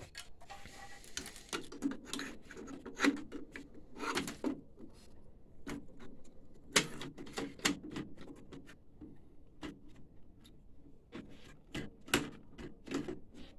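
Irregular clicks, taps and knocks of plastic and metal printer parts being handled and fitted into a printer chassis, in a small room.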